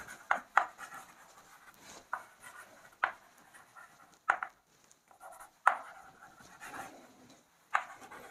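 Chalk writing on a blackboard: faint scratching of the strokes, broken by irregular sharp taps of the chalk against the board.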